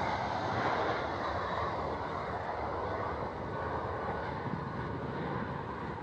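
Airbus A320 airliner's twin jet engines at takeoff thrust as it lifts off and climbs away, a steady jet roar that slowly fades.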